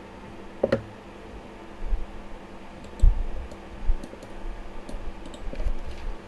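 Computer keyboard and mouse clicks, scattered and irregular, with a few dull low thumps on the desk, the loudest about three seconds in.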